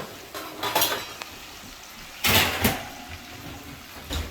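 Metal clanks and scrapes of a roasting pan being drawn out of an oven. There is a scrape about a second in, the loudest clatter just past two seconds in, and a short knock near the end.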